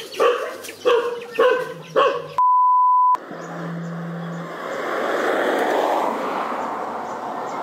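A frightened dog yelping several times in quick succession, then a steady electronic beep lasting under a second, followed by a low outdoor background hiss.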